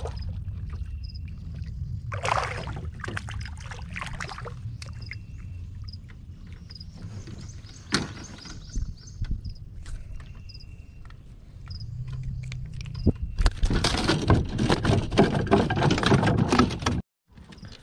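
Handling noise in a small fishing boat while a caught shellcracker is brought aboard: a low steady rumble throughout, a sharp knock about eight seconds in, and a loud stretch of rustling and knocking near the end that cuts off abruptly. Short high chirps repeat faintly in the background.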